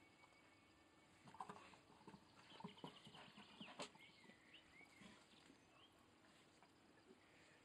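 Faint scuffling with a cluster of soft knocks and taps as a bull terrier noses and paws around inside an old rubber tyre on paving, strongest between about one and a half and four seconds in. A few faint high squeaks sound around the middle.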